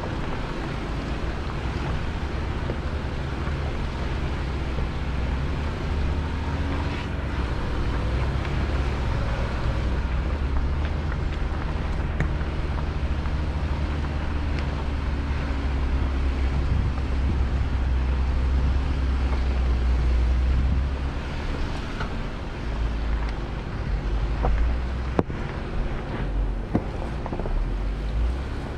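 Vehicle engine running steadily with a deep rumble that swells briefly and drops back about two-thirds of the way through, with a few sharp knocks near the end.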